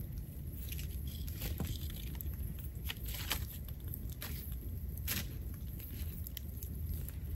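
Wood campfire crackling, with irregular sharp pops and knocks as the burning logs are poked and stirred with a stick, over a low steady rumble.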